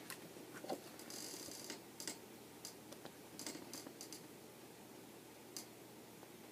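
Faint handling of a picture book's paper pages: scattered soft clicks and a brief rustle about a second in.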